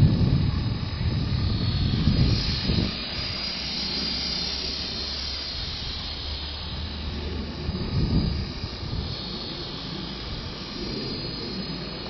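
Blade CP Pro electric RC helicopter in flight, its rotor and motor giving a steady high whirring hiss, with gusts of strong wind rumbling on the microphone, heaviest at the start and again about eight seconds in.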